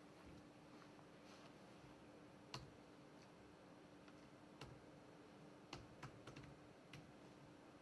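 Near-silent room tone with a few faint, irregular clicks of keys being pressed on a computer keyboard, more of them in the second half.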